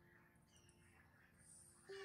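Near silence, with only faint background noise between calls.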